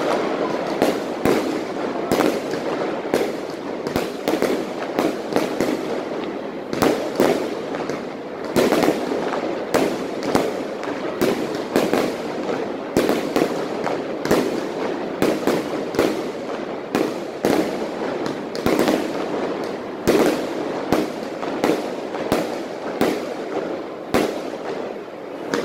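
Aerial fireworks bursting in quick, irregular succession: sharp bangs every second or so over a continuous crackle.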